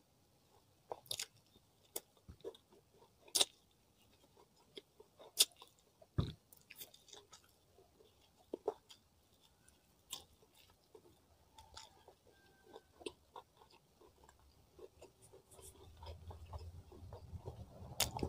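Close-miked eating of grilled chicken by hand: chewing and biting, with sharp, irregular mouth clicks and crunches as the last meat is pulled off a drumstick bone. A single dull thump comes about six seconds in, and a low rustling rises near the end.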